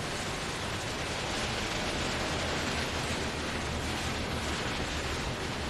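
Airbus A320's jet engines running at taxi power: a steady rushing noise with a low rumble underneath.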